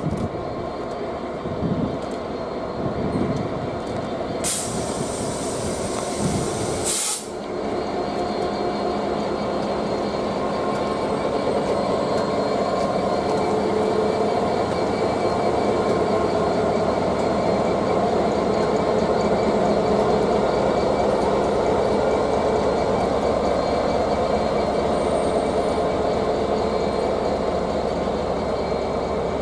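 A train running along the track, a steady rumble with a humming tone that builds to its loudest around the middle and eases a little near the end. Two short hisses come in the first several seconds.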